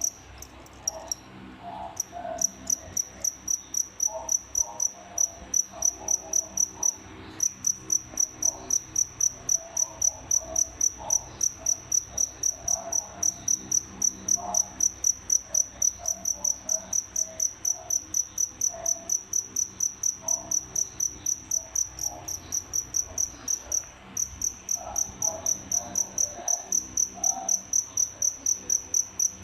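A male feeder cricket chirping loudly and steadily, about three high-pitched chirps a second, with short breaks near the start and about a quarter of the way in. It is the calling song a male makes to attract a mate.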